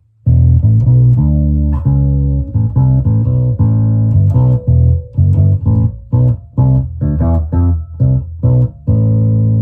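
Warwick Rockbass Corvette $$ bass guitar played through a small 8-inch, 25-watt combo amp, with the neck pickup switched to parallel. It plays a bass riff: a few longer notes, then a quicker run of short, separated notes, ending on one held note.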